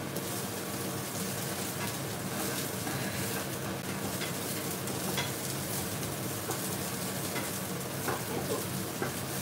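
Broccoli sizzling in a hot frying pan as it is stirred and tossed with two wooden spatulas: a steady frying hiss with occasional light clacks of wood against the pan.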